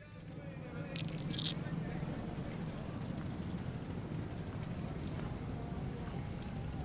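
Crickets chirping in a steady, even pulse, about two or three chirps a second, over a low background rumble.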